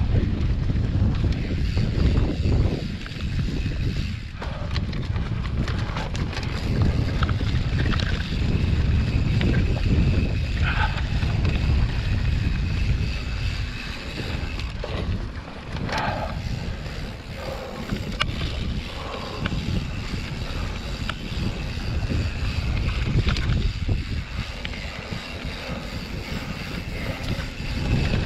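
Wind buffeting the microphone of a camera on a mountain bike descending a dirt singletrack, a loud low rumble that swells and dips with speed, with tyre noise and brief clicks and rattles from the bike on the rough trail.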